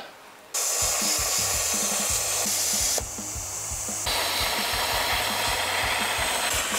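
Stick (MMA) welding arc on steel plate: the arc strikes about half a second in and then burns with a steady crackling hiss, briefly softer around the middle.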